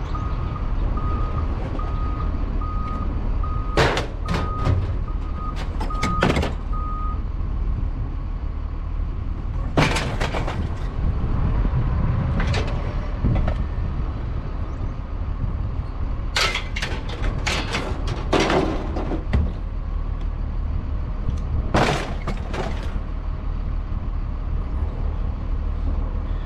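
Vehicle engine idling with a low, steady rumble. A beeping about twice a second runs for the first seven seconds or so. Sharp knocks and clanks come at intervals.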